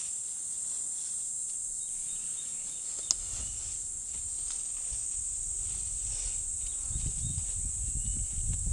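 Steady high-pitched chirring of insects, with a sharp click about three seconds in. A low rumbling noise starts just after the click and grows stronger near the end.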